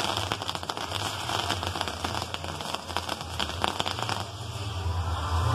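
Fireworks on a castillo, a Mexican pyrotechnic lattice tower, crackling and fizzing as its top section burns: a dense stream of sharp pops and sizzle. The crackle thins out about four seconds in, and a low rumble rises near the end.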